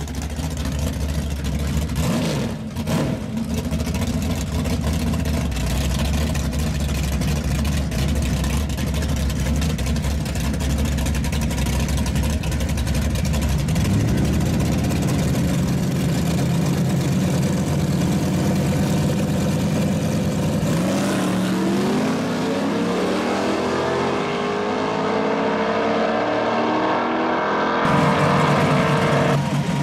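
Drag-race car engine running with a steady low rumble, stepping up to higher revs about halfway through. In the last third the engine note climbs in pitch in steps as the car launches and accelerates down the strip.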